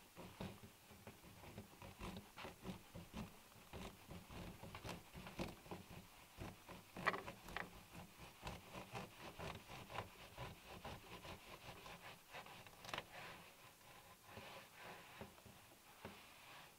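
Knife slicing a cured sausage on a wooden cutting board: a run of soft, repeated taps and scrapes as the blade cuts through and meets the board, with a sharper knock about seven seconds in.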